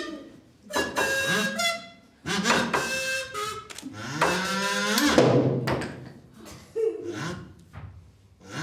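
Wordless, high-pitched voices of performers giving puppet characters a run of short calls, their pitch sliding up and down, with one longer gliding call about halfway through.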